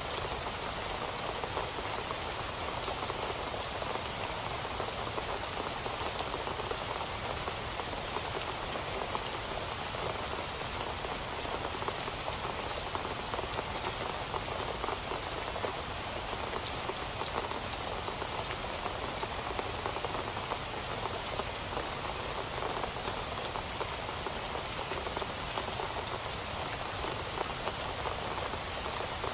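Steady rain falling on a surface, a dense, even patter of drops with no change in intensity and no thunder.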